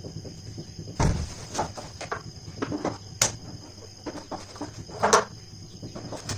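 White plastic rack parts (panels and tubular legs) knocking and clicking together as they are handled on a tiled floor: a dull thump about a second in, scattered sharp clicks, and a louder clatter about five seconds in. A faint steady high-pitched whine runs underneath.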